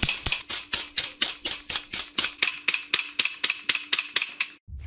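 Suppressed rifle firing a rapid string of shots, about five a second, that stops abruptly shortly before the end.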